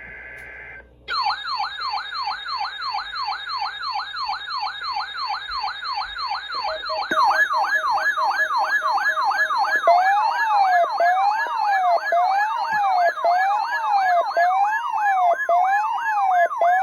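A short buzzy data burst, the SAME header of a NOAA Weather Radio test, ends about a second in. It gives way to loud electronic siren tones: a fast repeating whoop about three times a second, joined by a second sweeping siren about seven seconds in and a slower up-and-down wail about ten seconds in, with a steady alert tone under them near the end.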